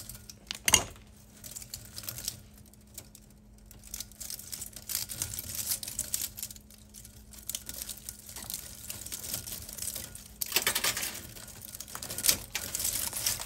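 Copper windings being pulled and pried out of an electric motor's steel stator core: irregular scraping, crinkling and rustling of the wires, with a sharp click about a second in and a louder stretch of scraping near the end.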